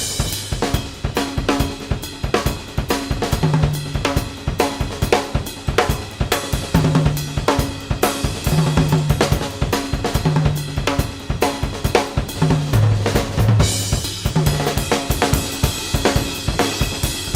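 Music driven by a drum kit, with kick, snare, hi-hat and cymbals playing a steady beat over short held bass notes.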